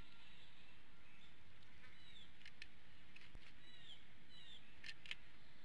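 Bird chirps: short, high notes that fall in pitch, coming in pairs, over a steady background hiss, with two sharp clicks close together about five seconds in.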